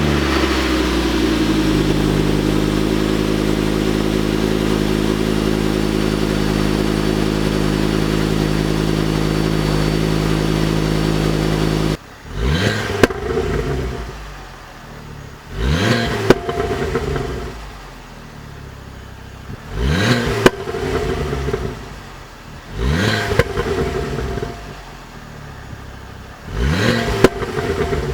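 Ford Focus ST 225's turbocharged 2.5-litre five-cylinder engine idling steadily just after start-up. After an abrupt cut it is free-revved five times in quick blips, each rising and falling back to idle, with a sharp crack near the top of four of them.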